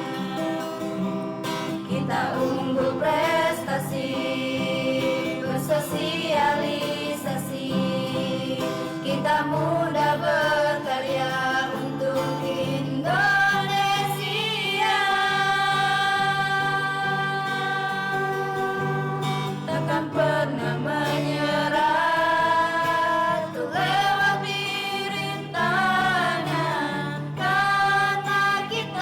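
A song with singing voices, long held sung notes over a steady bass line.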